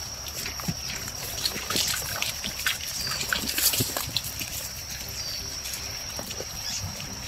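Footsteps on a muddy forest footpath and the rustle of grass and leaves brushed in passing, in many small irregular clicks. Under them runs a steady high-pitched insect drone.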